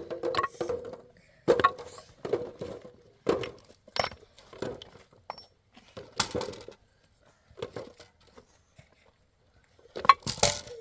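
Irregular knocks and clinks of hard objects striking one another, roughly one a second, with a louder cluster of hits near the end.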